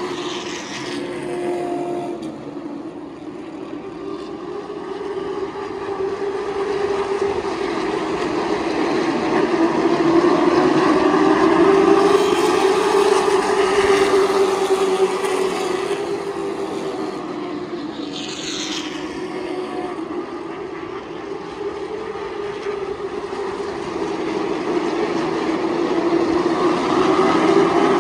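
A field of stock cars racing around a short oval, giving a continuous engine drone that swells and fades as the pack laps. It is loudest about twelve seconds in and again near the end. Twice a thin high whine sweeps down in pitch.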